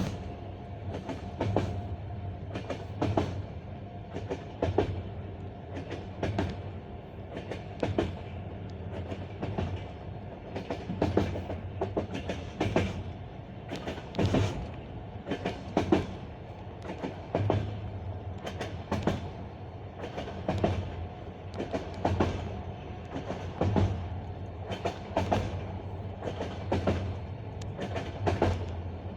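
Passenger-car wheels clattering over the rail joints of jointed track, the clickety-clack recurring about every one and a half seconds over a steady rolling rumble.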